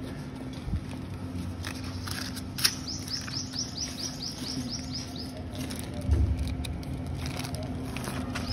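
A bird calling: a quick run of about a dozen short high chirps, each falling in pitch, about four a second. A low rumble comes in after it.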